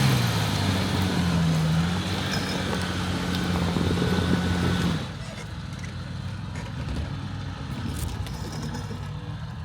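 Off-road vehicle's engine running at steady revs. About halfway through it drops suddenly to a quieter, lower running sound.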